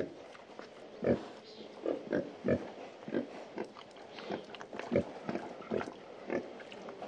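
Pigs grunting: a string of short grunts, one every half second to a second, at irregular intervals.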